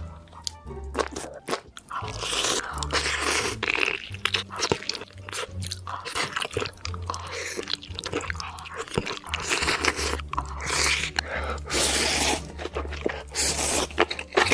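Close-miked eating: repeated crunching and chewing of food at a mukbang, with steady low tones running underneath.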